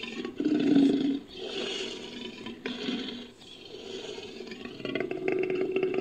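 Made-up sound effects for the extinct American lion, built from big-cat recordings: a series of roars and growls with short gaps between them, ending in a pulsing growl.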